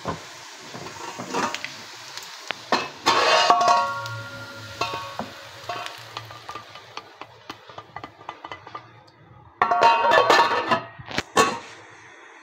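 Metal clattering and scraping of a frying pan and spoon as a tadka of fried onions in oil is tipped over rice in a steel pot, in two loud spells, about three seconds in and again near the end. Sharp clinks close the second spell as a steel lid is set on the pot.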